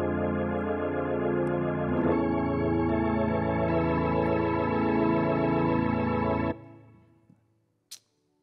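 Korg X5D synthesizer keyboard holding organ-like chords with a wavering shimmer, changing chord about two seconds in: the closing chords of a song. They cut off sharply about six and a half seconds in, and a brief click follows near the end.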